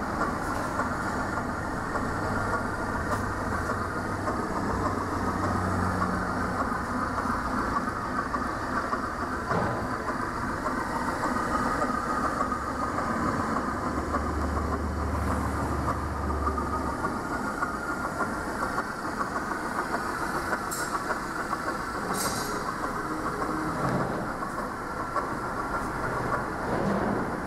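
Steady machine-shop noise: a continuous mechanical rumble and clatter of machinery running, with a couple of brief sharp sounds near the end.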